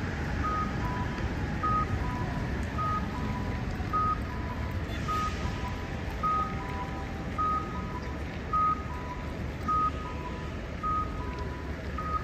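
Accessible pedestrian crossing signal sounding its two-note cuckoo tone, a short high beep followed by a lower one, repeating about once a second over steady street traffic rumble.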